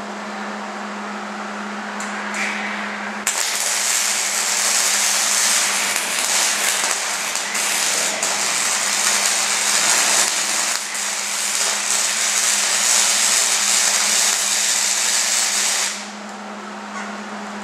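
Electric arc welder fusing a steel T-post frame: the loud, continuous crackling hiss of the welding arc starts about three seconds in, runs for about thirteen seconds, then cuts off. Before and after it there is only a steady low hum.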